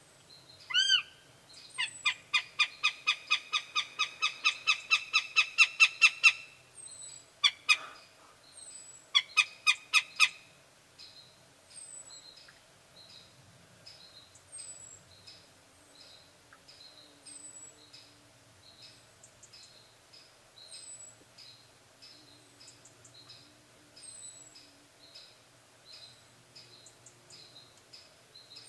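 Female northern goshawk calling: one call, then a rapid run of about twenty calls at four or five a second, followed by two shorter runs. After that, only faint song of small woodland birds.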